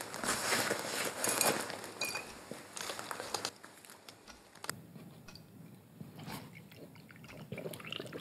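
Clothing rustling and a glass vodka bottle being handled, with crinkling and crackling and a few small clicks. It is busiest in the first few seconds and then quieter.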